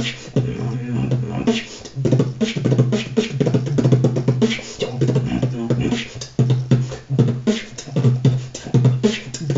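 Solo human beatboxing: a fast run of mouth-made clicks, kick- and snare-like hits over a low hummed tone, sparser for about the first second and a half, then denser and louder.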